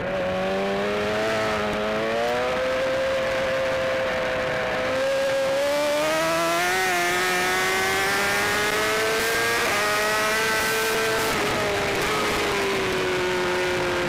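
BMW S1000RR inline-four engine heard from on the bike at racing speed, its note climbing as it pulls through the gears, stepping at a gear change about two-thirds of the way in, then falling toward the end as the bike slows into a corner.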